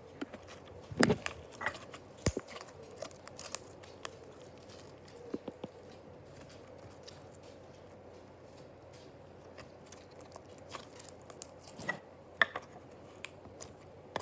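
Slime being handled: irregular sticky clicks, pops and crackles. They come in two busy stretches, with a quieter spell in the middle.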